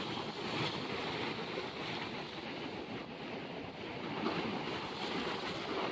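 Sea surf breaking and washing in among the rocks of a jetty: a steady rushing noise that swells and eases with the waves.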